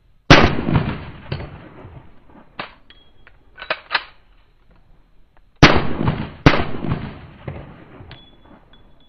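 Handgun shots: one loud shot near the start, then two more about a second apart past the middle, each with a ringing tail, and fainter sharp reports in between.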